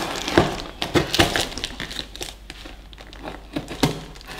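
Scissors snipping through the clear plastic film and packing tape wrapped around a cardboard parcel, the plastic crinkling in irregular bursts. Busiest in the first second and a half, quieter in the middle, with more crinkling near the end.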